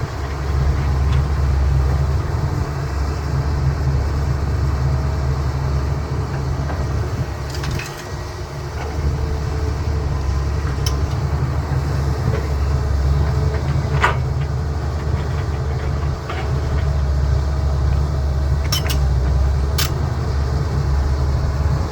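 CAT 320B excavator's diesel engine working under load, a deep steady rumble that eases briefly twice. Several sharp clanks cut through it, the loudest about 14 seconds in.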